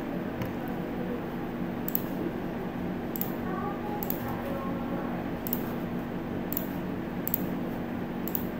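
Computer mouse clicking about eight times at irregular intervals roughly a second apart, over a steady low hum of room and computer noise.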